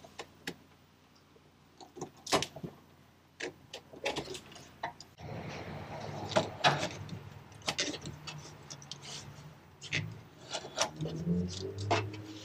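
Parts being handled and fitted by hand: irregular clicks and knocks, with a stretch of scraping and rustling in the middle.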